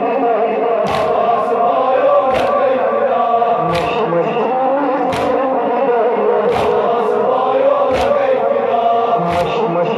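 Crowd of male mourners chanting a Kashmiri noha in unison, with a sharp slap about every one and a half seconds from matam: hands striking chests together in time with the chant.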